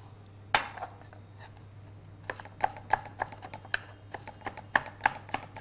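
Kitchen knife chopping a garlic clove on a wooden cutting board: one knock, then from about two seconds in a quick run of sharp taps, several a second.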